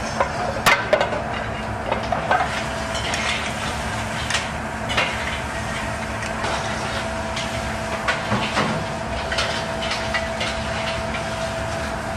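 Scattered light clicks and clinks of an oyster knife against shells and of dishes, over a steady kitchen hum with a faint whine.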